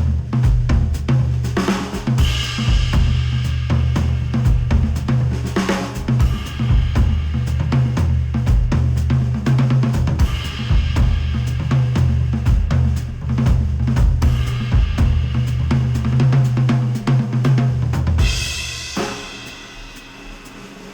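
Instrumental music played back through Audeze MM-500 headphones and picked up by microphones at the earcups: a drum kit with kick, snare, hi-hat and cymbals over a heavy bass line. About three seconds before the end the bass and beat drop out and the music turns quieter.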